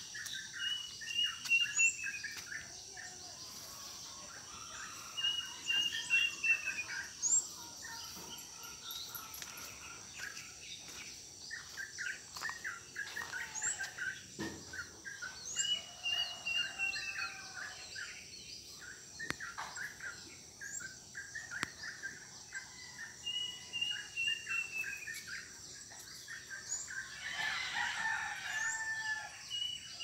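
A kedasih cuckoo (sirit uncuing) repeats a clear falling whistled call every several seconds. Smaller bird chirps and a steady high insect drone run underneath, and a rooster crows near the end.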